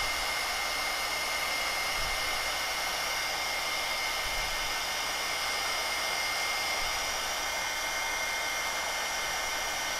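Craft heat tool blowing steadily, a constant rush of air with a faint high whine, drying wet acrylic paint and distress stain on a tag.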